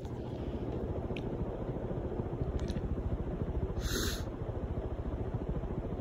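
Emerson Fresco ceiling fan running on high with four blades: the blades swishing the air in a fast, even pulse over the steady motor. A brief hiss about four seconds in.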